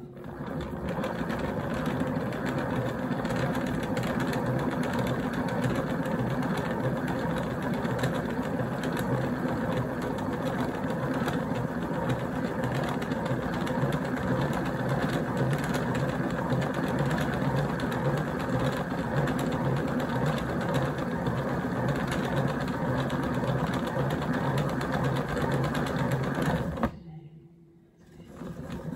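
A small machine running steadily with a fast, even whir. It stops abruptly about 27 seconds in and starts again a second or so later.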